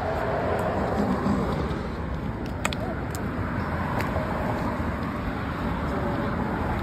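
Steady outdoor rumble, with two sharp clicks a little under three seconds in and about four seconds in.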